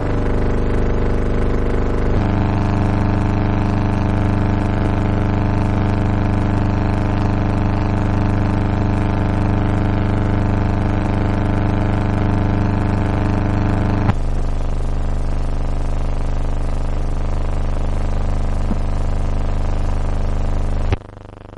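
Background music of sustained, droning chords, each held for many seconds. The chord changes abruptly about two seconds in and again around fourteen seconds, then drops suddenly to a much quieter chord near the end.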